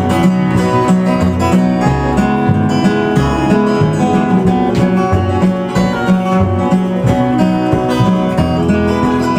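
Instrumental close of a folk ballad: fingerpicked acoustic guitar, its bass notes moving about twice a second under plucked treble notes, with no singing.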